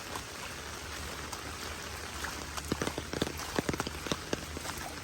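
Heavy rain falling in a steady hiss. From about halfway, close, sharp, irregular drop taps come in and grow denser.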